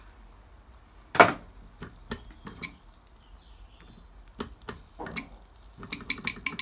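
Small Mamod TE1a steam engine, stalled, with scattered light metallic clicks and taps as its control lever is worked and a sharp click about a second in; near the end a quick run of clicks as the single cylinder starts chuffing again.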